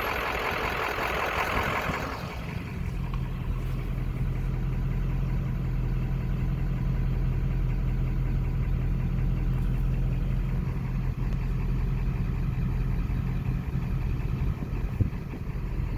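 Truck engine idling steadily, heard from inside the cab as a constant low hum. A louder rushing noise over it for the first two seconds drops away.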